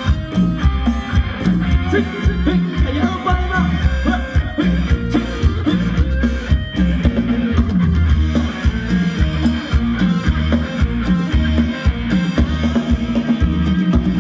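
Live band playing Thai ramwong dance music, with a steady heavy drum beat and guitar.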